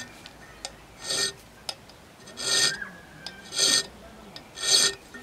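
Round hand file rasping across the edge of a Sleipner steel knife blank: four separate strokes, about one a second.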